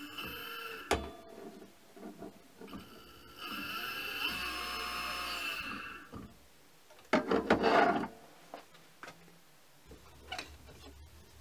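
Brushless sewing-machine servo motor switched on with its lever switch, running smoothly and quietly with a steady high whine for about two and a half seconds, then winding down with a falling pitch. Sharp clicks come before it, and a loud burst of clattering knocks from handling parts follows a second or so later.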